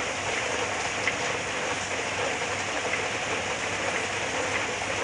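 Heavy rain falling steadily, an even hiss of downpour with faint scattered drops.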